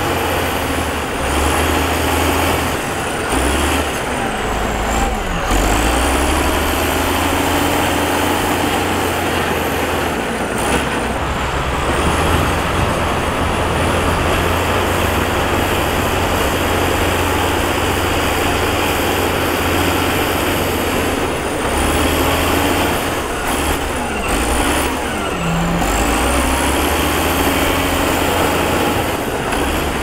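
Heavy diesel earthmoving equipment working, its engines running loud and steady. A high whine sweeps up and down several times as the machines work.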